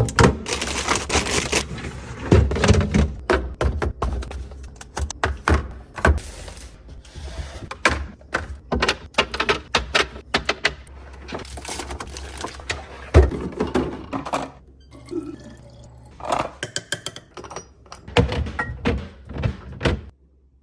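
Plastic containers, jars and food packages being handled and set down in a fridge during restocking: many quick knocks, clicks and clatters with rustling between them.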